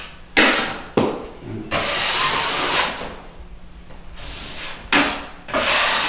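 A 6-inch steel drywall knife scraping joint compound (concrete fill mixed with a little regular mud) along the drywall seam and mud pan, in about five separate strokes. The longest stroke falls around two seconds in, and there is a quieter gap before the last strokes.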